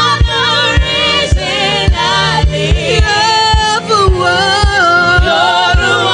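Gospel worship music: voices singing a melody with runs, over a steady kick-drum beat of about two beats a second.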